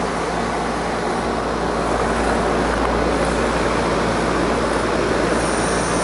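Outdoor air-conditioner condensing unit running close up: the steady rush of its condenser fan over a low compressor hum. About five seconds in, a faint high whistle joins it.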